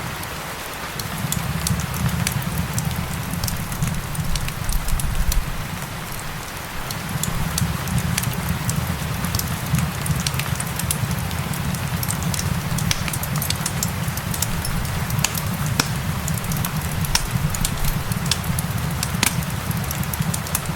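Wood fire crackling with frequent sharp pops over a steady hiss of rain and a low rumble.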